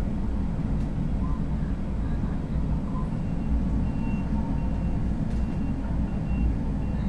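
Diesel engines of heavy log-handling machinery, a log loader and a wheel loader with a log grapple, running with a steady low rumble. A faint high beeping repeats through the second half.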